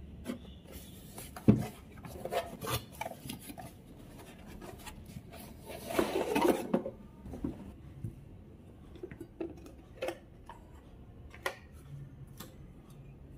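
Unboxing handling noise: a cardboard box and its packing being handled and scraped as an enamel saucepan is slid out. There is one sharp knock about a second and a half in, a longer rustling scrape around the middle, and a few light taps and knocks near the end.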